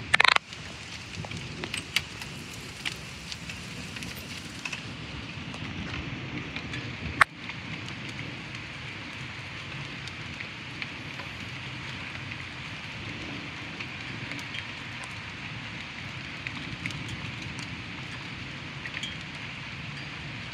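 Light rain falling on tree leaves: a steady hiss with scattered crackling drips and a low rumble underneath. A brief loud burst comes just after the start, and a single sharp click about seven seconds in.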